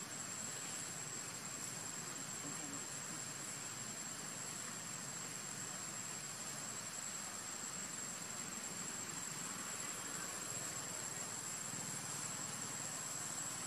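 Steady outdoor ambience: an even hiss with a continuous high-pitched insect drone that does not change.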